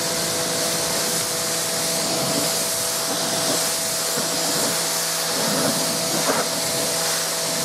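Kärcher K5.740 electric pressure washer running, its motor and pump humming steadily under the loud hiss of the water jet spraying a wooden picnic table.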